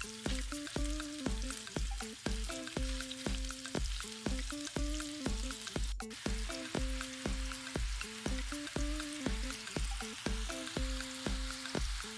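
Meatballs frying in butter in a pan, sizzling with a steady hiss, under background music with a steady beat of about two pulses a second.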